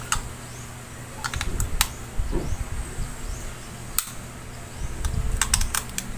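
Scattered small plastic clicks and taps from a handheld glucometer being handled and worked at its battery compartment. The clicks are irregular, with several in quick succession near the end.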